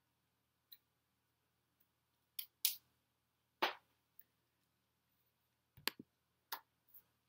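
Sparse soft taps and rustles from a person's hands and clothing as she signs, about seven short ones with the loudest near the middle, over a faint steady low hum.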